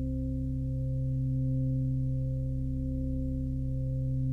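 Background music: a sustained low drone of steady tones, like a singing bowl, swelling gently in loudness, with no beat.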